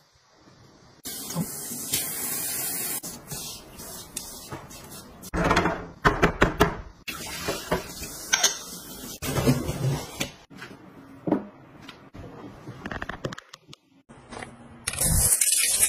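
Water running from a kitchen tap, then ceramic bowls and dishes clinking and knocking in a stainless steel sink as they are rinsed. A loud hiss comes near the end.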